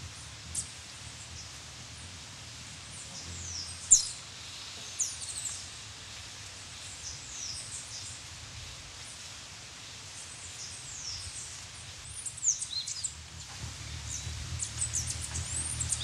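Copper-rumped hummingbird giving sharp, high, downward-sliding aggressive chip calls, scattered at first and crowding together near the end. A low hum of its wingbeats grows louder in the last couple of seconds.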